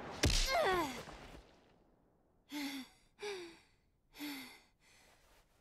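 A punch lands with a sharp thud and a short falling cry, then a boy pants three times, breathy gasps about two-thirds of a second apart, out of breath after the blow.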